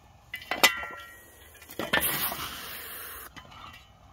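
A steel shovel blade working at a badger held in a foothold trap: sharp metallic clinks about half a second in, then a harsh scraping hiss from about two seconds in lasting just over a second.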